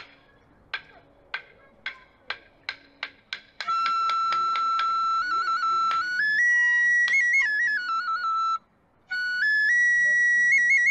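Kagura festival music: an accelerating run of sharp percussion strikes, then a Japanese bamboo flute enters with a long held note that steps up and down in pitch, briefly breaks off near the end and resumes higher.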